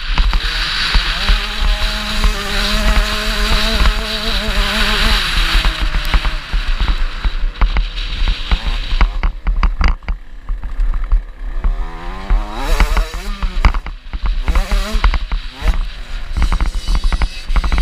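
Small two-stroke motocross bike engine, a KTM 65, revving up and falling back over and over, with several quick rising revs in the second half. Heavy wind rumble on the bike-mounted camera runs under it.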